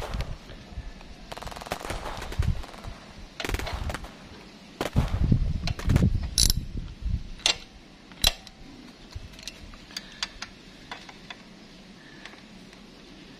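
Small hand ratchet clicking in quick runs as it snugs down the oil filter cover bolts. A few sharp single clicks follow in the middle, and fainter, sparser clicks come near the end.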